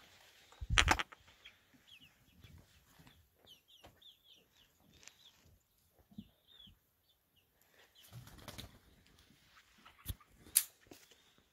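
Young chickens (pullets) giving short, high, sliding cheeps, scattered and soft. There is a loud thump about a second in and a couple of sharp clicks near the end.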